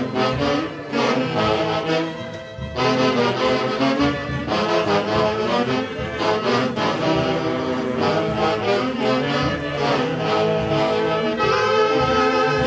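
A band led by a saxophone section plays a lively dance tune over drums, with a brief drop in loudness about two seconds in.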